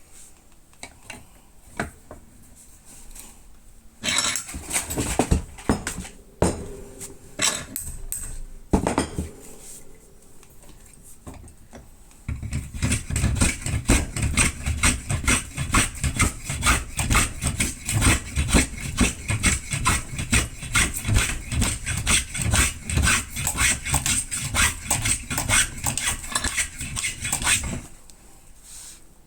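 Hand tool scraping along a small piece of wood as it is shaped, with a few uneven strokes, then a long run of quick back-and-forth strokes at about three a second that stops shortly before the end.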